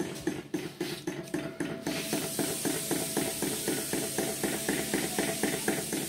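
Antique flame-heated hot-air engine table fan running, its piston mechanism clacking in a steady rhythm of about five strokes a second. A steady hiss joins about two seconds in.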